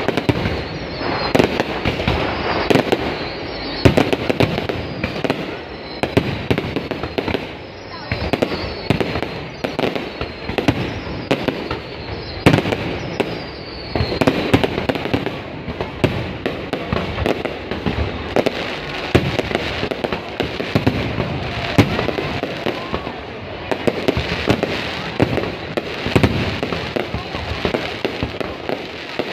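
Aerial fireworks going off in a continuous barrage: many overlapping bangs over dense crackling, with short falling whistles in the first half.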